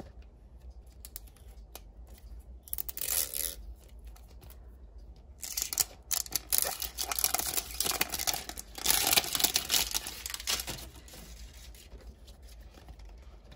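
Toy packaging being torn open and crinkled: a short rip about three seconds in, then a longer stretch of loud tearing and crackling from about six to eleven seconds, settling to quieter rustling near the end.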